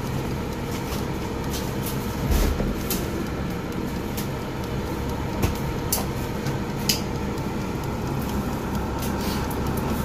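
Black+Decker air fryer running after being set for 30 minutes, its fan giving a steady whir and hum as it heats. A few sharp clicks and a low thump stand out over it, the thump about two seconds in and the loudest clicks around five and a half and seven seconds in.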